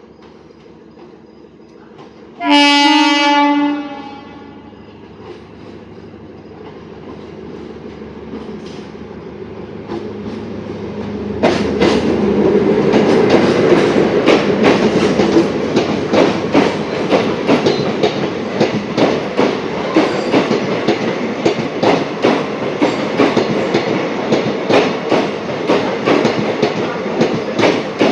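A DEMU diesel multiple-unit train sounds one horn blast of about a second, then approaches with a growing rumble. From about 11 seconds in it runs close by, loud, with dense wheel clatter and clicks over the rail joints.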